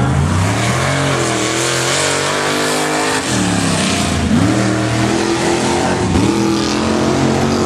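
Heavy 2½-ton racing trucks' engines running hard under throttle, the engine note climbing as they rev and dropping sharply about three seconds in and again around six seconds before climbing once more.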